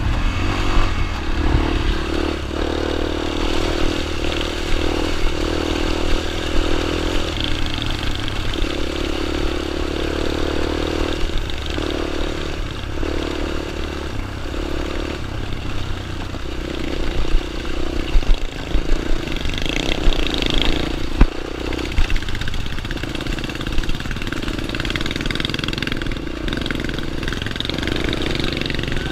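Dirt bike engine running, its note rising and falling as the throttle changes, with a few sharp clattering knocks about two-thirds of the way through.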